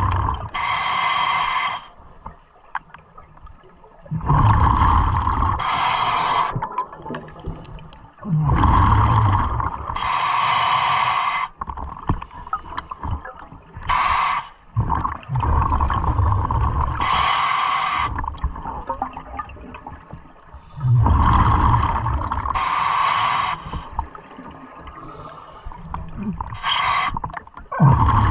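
Diver breathing through a scuba regulator underwater: a hiss with each inhale and a bubbly rumble as each exhale vents, repeating in a slow, regular cycle every few seconds.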